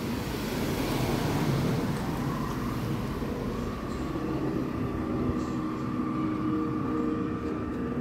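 Rumble of a passing vehicle, with a steady whine that comes in about two and a half seconds in and holds.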